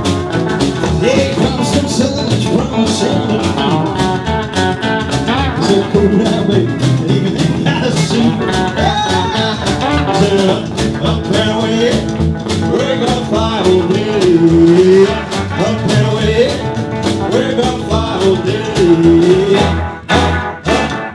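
Rockabilly band playing with a driving guitar and a man singing lead.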